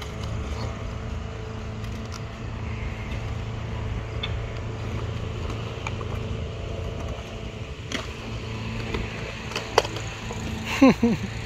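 Small wheels of a child's kick scooter rolling over a concrete skatepark, a steady low rumble. Near the end come a couple of sharp knocks and a brief squeal that falls in pitch.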